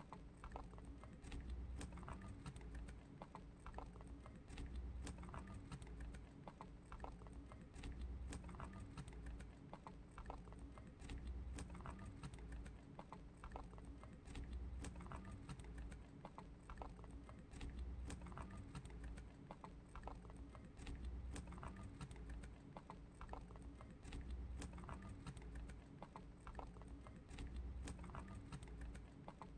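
A lionhead–Dutch mix rabbit chewing a long green leaf, a fast run of small crisp crunching clicks that goes on without a break.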